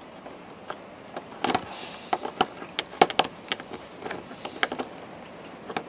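Hands tightening and working paracord around a small fixed-blade knife's handle: irregular light clicks and short rubbing scrapes, busiest from about one and a half seconds to near five seconds in.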